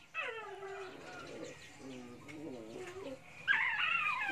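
Baby monkey and kitten crying: a string of high, wavering calls that slide down in pitch, with a louder burst of high cries about three and a half seconds in.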